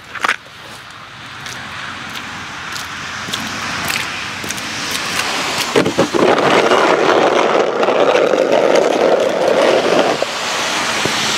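Plastic snow shovel scraping across wet asphalt and slush in a long push, growing louder and stopping abruptly near the end.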